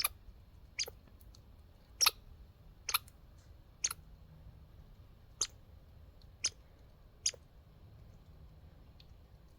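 A squirrel making sharp hiccup-like clicks, about eight of them, irregularly spaced roughly one a second.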